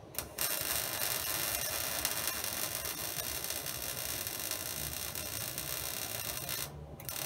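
Wire-feed welding arc on mild steel: a steady crackling hiss struck about half a second in after a brief first spark. Near the end the arc breaks off for a moment and strikes again.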